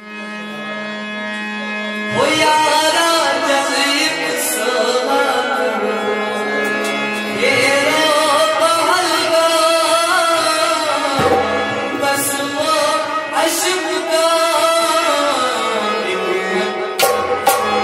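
Harmonium holding a steady chord, joined about two seconds in by male singing of a Kashmiri song over the harmonium, with occasional hand-drum strokes, amplified through a small PA.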